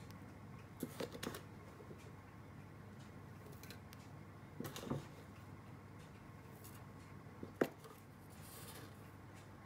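Small clicks and taps of a plastic measuring spoon against plastic containers and the bread-machine pan while dry ingredients are spooned in: a few taps about a second in, a couple more about five seconds in, and one sharp tap near the end.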